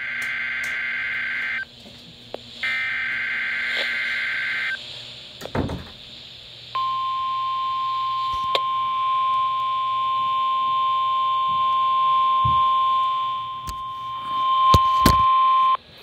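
Weather radio sounding an emergency alert through its small speaker. It plays two harsh buzzing SAME digital header bursts of about two seconds each, then the steady 1050 Hz NOAA Weather Radio warning alarm tone for about nine seconds, which signals that an alert message is about to be read. A thump comes between the bursts and the tone, and a few clicks come near the end of the tone.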